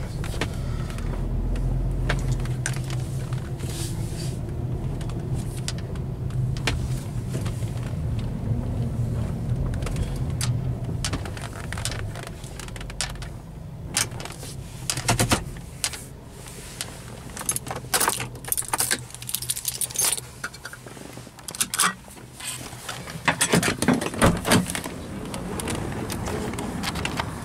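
Car cabin noise while driving: a steady low hum of engine and road. About halfway through the hum drops away, and a run of scattered clicks and jingles follows as the car is parked and its door handled.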